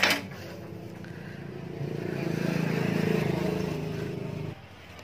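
A motor vehicle engine running steadily, growing louder to a peak about three seconds in, then easing off and cutting out suddenly about four and a half seconds in. A short knock sounds right at the start.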